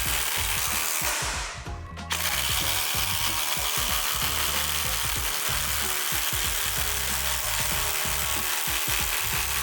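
Cordless impact driver running under load, driving into wood, with background music underneath. The tool sound drops out briefly about two seconds in, then runs on steadily.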